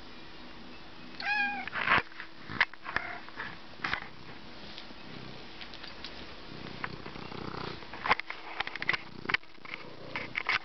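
A house cat meows once, a short call about a second in, among scattered sharp taps, the loudest just after the meow.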